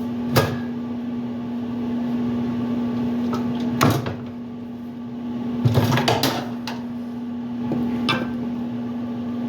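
Scattered knocks and clunks as a washing machine transmission is worked loose and pulled out of its mounting, over a steady hum: a single knock near the start, another about four seconds in, a quick cluster around six seconds, and one more near eight seconds.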